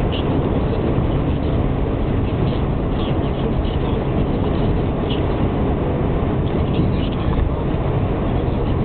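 Steady tyre and engine rumble inside a car's cabin cruising at motorway speed, with a few faint short high ticks now and then.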